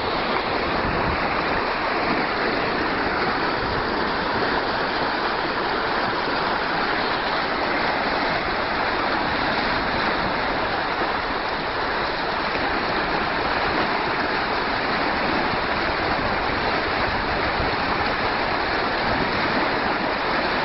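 Fast-flowing floodwater rushing in a steady, loud churn of white water.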